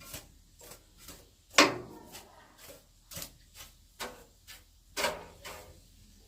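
Irregular light clicks and knocks of hard objects being handled, about nine in all, with one louder knock about one and a half seconds in.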